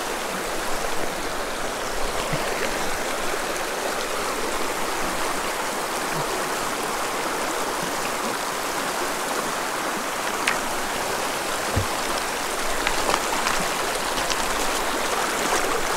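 Shallow mountain creek rushing over a gravel-and-rock riffle, a steady wash of running water, with a couple of faint knocks a little past the middle.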